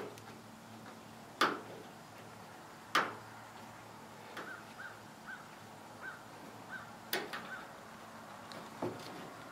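Rubber grommet being pressed and worked into a hole in a truck's sheet-metal taillight pocket: a few sharp clicks and knocks of hand and grommet against the metal, the two loudest about a second and a half apart early on, with small ticks between. A faint row of short high chirps comes in the middle.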